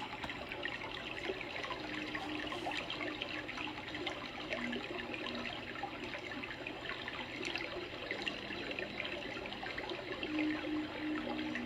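Running water trickling steadily, with a constant fine splashing and babbling.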